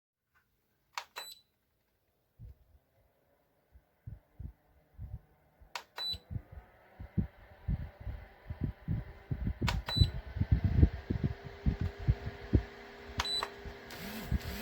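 Short high electronic beeps from a LIPETY portable oscillating fan, four of them a few seconds apart. The fan's airflow buffets the microphone in irregular low thumps that grow stronger and more frequent, and a faint steady motor hum comes in about eleven seconds in.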